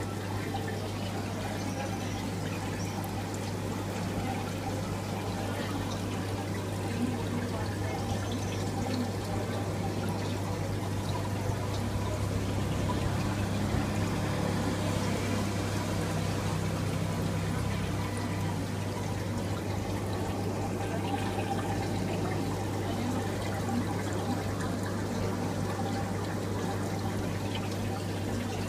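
Water bubbling and trickling in a garra rufa fish spa tank, with a steady low hum underneath, the sound of the tank's aeration and circulation running.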